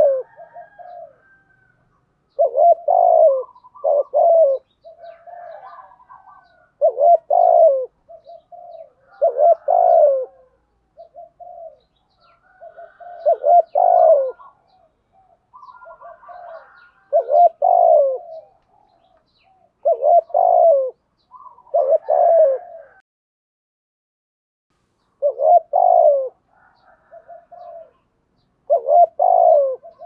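Spotted dove cooing: a loud phrase of low coos repeated about every three to four seconds, with softer coo notes between the phrases.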